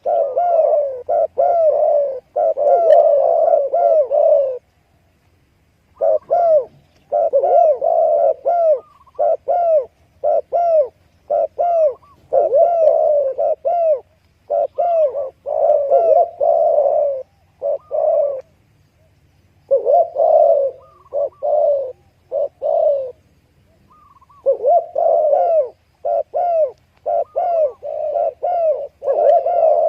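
Doves cooing in runs of short repeated notes, several a second, broken by brief pauses about four seconds in and again near the middle.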